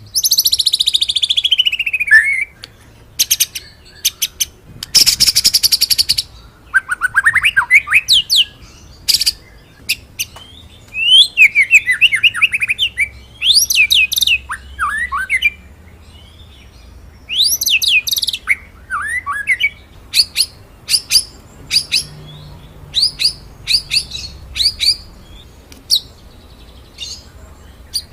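White-rumped shama (murai batu) singing a varied, loud song: a long falling whistle, a fast buzzy rattle, runs of quick sweeping whistled notes, then a string of short, sharp high notes near the end, the rolling and 'shooting' phrases prized in a training song.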